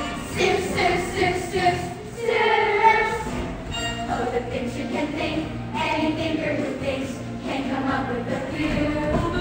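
A large young cast singing a musical-theatre number together in chorus.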